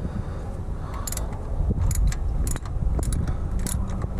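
Hand ratchet wrench clicking in short, irregular runs as a bolt is turned.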